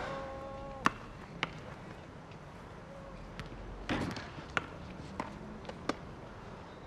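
Scattered sharp knocks and taps, about six spread irregularly over a few seconds above a quiet background, after a short steady tone that stops just under a second in.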